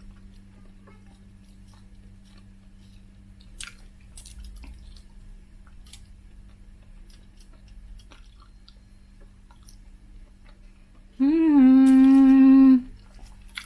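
Close-miked mouth sounds of someone chewing food, faint wet smacks and clicks. Near the end comes a loud closed-mouth hummed "mmm" of enjoyment, held for about a second and a half.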